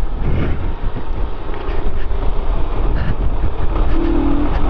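Motorcycle engine running while riding off-road, with wind rushing over the microphone. A short steady tone comes in near the end.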